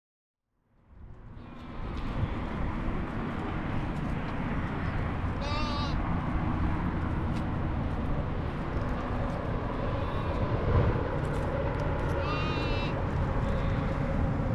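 A goat bleats twice, a short quavering call about five seconds in and another near the end, over a steady outdoor rush of background noise that fades in at the start.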